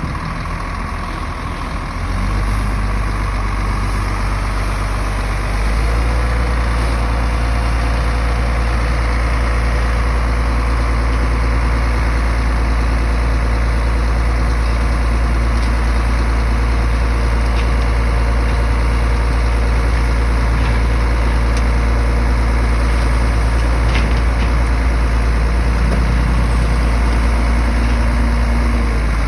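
Heavy earthmoving machine's diesel engine running, stepping up in loudness about two seconds in and again about five and a half seconds in, then holding steady.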